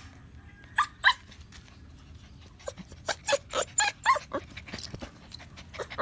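Puppies whimpering and yipping in short, high squeaks: two about a second in, then a quick run of them between about three and four and a half seconds in.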